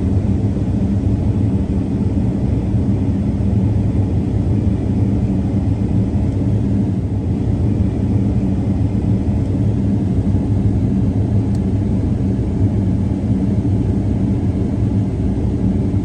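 Combine harvester running steadily while harvesting corn: an unchanging low engine and machinery hum.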